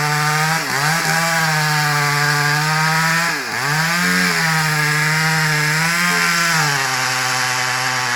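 Chainsaw running at high revs while cutting into a tree being felled. Its steady pitch dips sharply twice, at about a second in and again midway, then settles lower near the end.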